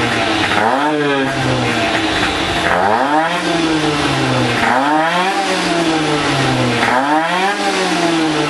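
Small racing motorcycle engine being warmed up, its throttle blipped about every two seconds: the revs climb quickly and then fall back, four times over.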